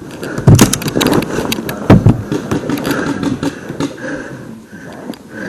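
Two loud sharp knocks about a second and a half apart, among frequent small clicks and rustling.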